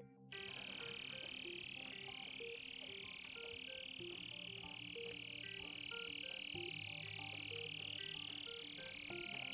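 Small drones flying, heard as a high warbling whine that drifts up and down in pitch. Under it runs background electronic music with a stepping melody of short notes.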